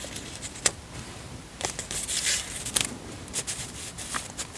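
Close-up handling of paper on a planner page: a handful of sharp clicks and taps, with a longer papery rustle about two seconds in.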